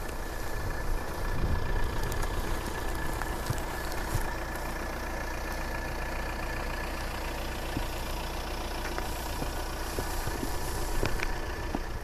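An engine running steadily, with a low hum under it.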